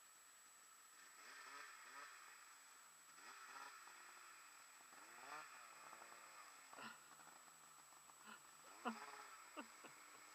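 Faint, distant snowmobile engine revving up and down as the sled climbs through deep powder. A few sharp clicks come in the second half, the loudest near the end.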